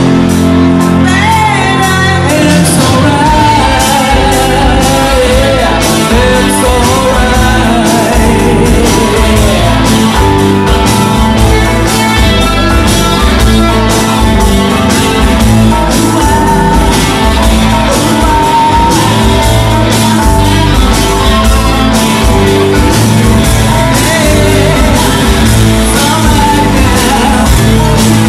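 Live rock band playing: electric guitars, bass guitar and drum kit with a singer's voice. The heavy low beat of bass and drums comes in about three seconds in.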